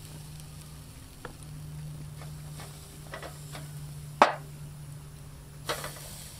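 Metal kitchen tongs clicking and tapping against a tray and a wire grill grate as chicken wings are laid over a charcoal fire, with one sharp clack about four seconds in and a brief hiss near the end. A low steady hum sits underneath.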